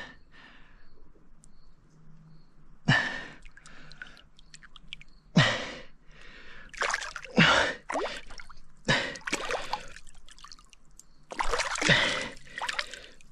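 A person wading neck-deep through water: splashing and dripping water with a series of sharp, gasping breaths.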